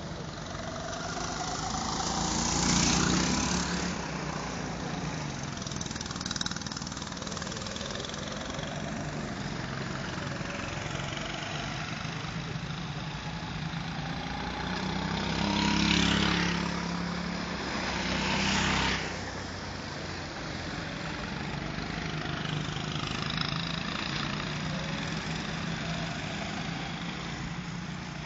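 Go-kart engines running on a track, with karts passing close by: the engine sound swells and fades, loudest about three seconds in and twice more about two-thirds of the way through, their pitch gliding up and down as they rev.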